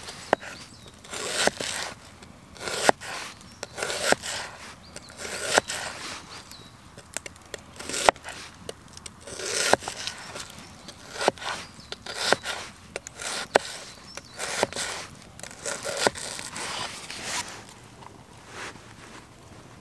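Kitchen knife slicing through a red onion on a wooden chopping board: each cut gives a short crunchy scrape ending in a sharp tap of the blade on the board, roughly once a second at an uneven pace. The cutting dies away near the end.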